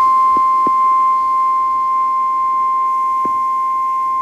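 NOAA Weather Radio warning alarm tone: a single steady, loud tone of about 1050 Hz, held without a break. It is the alert signal that switches on weather-radio receivers ahead of a warning broadcast.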